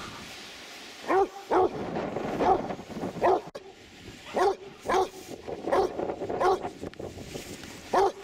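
Basset hound barking while it digs in sand: about nine short barks, unevenly spaced, with gaps of about half a second to a second between them.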